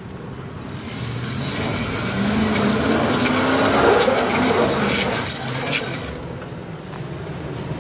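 Ford F-150 pickup crawling past on a gravel trail, its engine running over tyre crunch with a grinding, rasping noise from the front end. The sound swells as the truck comes close about four seconds in and then fades. The grinding is taken for a front-end fault, possibly four-wheel drive not engaging, though the onlookers are not sure.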